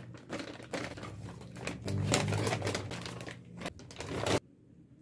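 Plastic and paper shopping bags and packaging crinkling and rustling as items are unpacked and set down on a desk, with a fast run of clicks and taps. It stops abruptly about four and a half seconds in.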